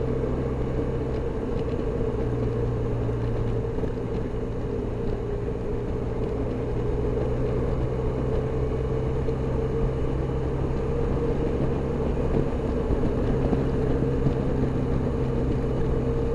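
Motor scooter's engine running at a steady cruising speed, a constant drone under even wind and road noise.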